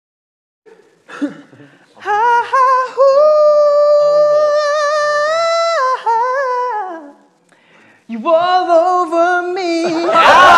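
A high voice singing long, wordless held notes: one steady note of about four seconds that slides down at its end, then after a short pause a second held note. Cheering and clapping start up near the end.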